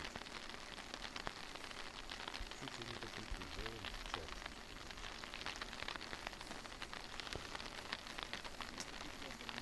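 Light rain pattering on the fabric of an ice-fishing tent: a steady hiss full of small, dense ticks.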